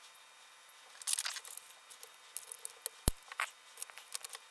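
Light plastic clicks and rattles of an AA battery carrier being handled and slid back into a cordless electric screwdriver's handle, with one sharp click about three seconds in as it seats. The carrier is being reseated to get past bad battery contacts.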